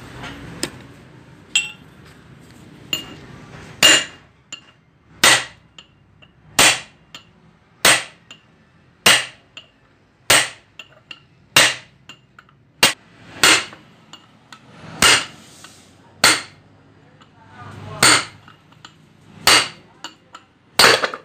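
Hammer blows on a steel rod held as a drift against the splined shaft of a Shaktiman rotavator bearing housing, knocking the shaft out through its ball bearing. Two light taps, then about fourteen sharp metallic strikes, a little over one a second, each with a short ring.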